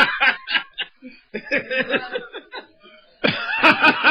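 Laughter in quick, choppy bursts. It fades to a brief lull about three quarters of the way through, then breaks out again louder near the end.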